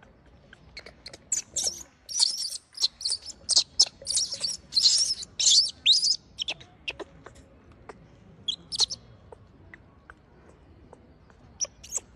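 Newborn macaque screaming in distress as its mother pulls it about: a fast run of shrill, high-pitched squeals over the first six seconds or so, then a couple of short cries a few seconds later and a few more near the end.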